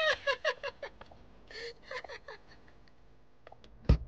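A woman laughing in quick, high bursts that die away within the first second. Just before the end, a wooden door slams shut with a single sharp bang, the loudest sound here.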